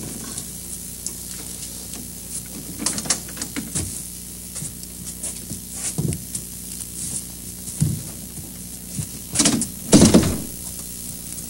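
Scattered soft knocks and rustles over the steady hum and hiss of an old broadcast soundtrack, with a louder bump about ten seconds in.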